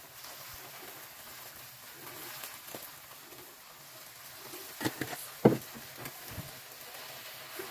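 Eggs frying without oil in a non-stick egg pan: a faint, steady sizzle. A few light taps and one sharper click come about five seconds in.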